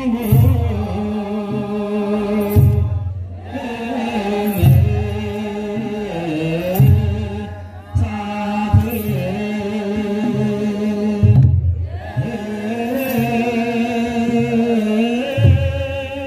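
Ethiopian Orthodox wereb: a mixed choir chanting long held notes together, with a kebero hand drum beating deep strokes in a slow, uneven rhythm, often in pairs.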